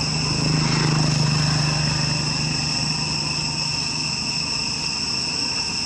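Steady, high-pitched insect chorus made of several constant tones, with a low engine drone that swells over the first second or two and then fades.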